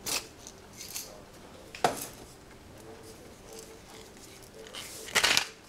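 A doll-shaped seasoning shaker handled over a bowl of soup: a sharp click about two seconds in, then a brief noisy shake near the end.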